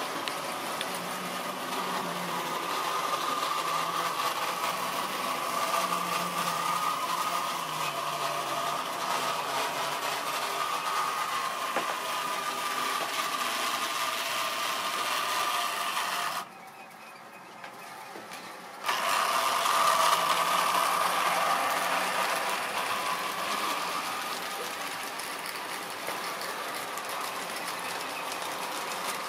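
Tri-ang OO-gauge model trains running on the layout: a steady electric motor whine with the wheels clattering over the track. The sound drops away for about two seconds partway through, then comes back louder before easing off.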